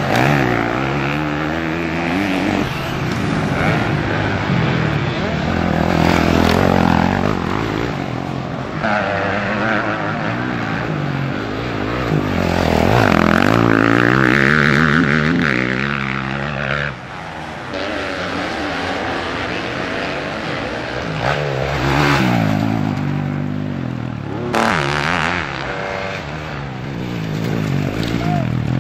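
Motocross motorcycle engines revving up and down as several bikes race past one after another, the pitch rising and falling with each pass.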